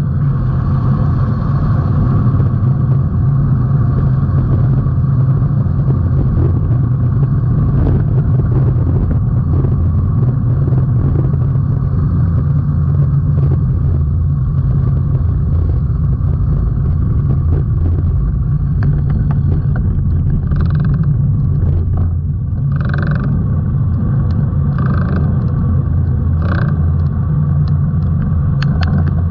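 Wind rushing over a GoPro's microphone on a road bike speeding downhill: a steady, loud low rumble, with a thinner hiss above it from the tyres on the wet road. A few brief higher hissing bursts come near the end.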